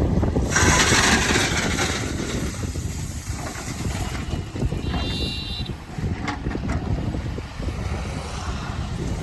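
Heavy diesel machinery running with a low, steady rumble. A loud hiss cuts in about half a second in and lasts a second and a half, and a brief high squeal sounds about five seconds in.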